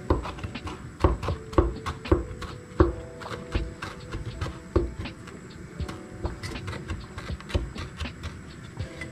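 Kitchen knife chopping fresh parsley on a bamboo cutting board: irregular knocks of the blade on the wood, with several loud strikes in the first three seconds and lighter, quicker cuts after.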